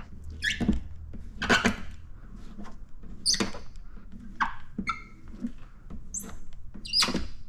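Wet paint protection film squeaking and rubbing as it is worked down and tucked around a truck fender's edge: an irregular run of short, high squeaks.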